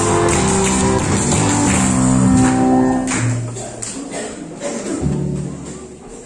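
Music with singing and instruments, loud for about three seconds and then dying away.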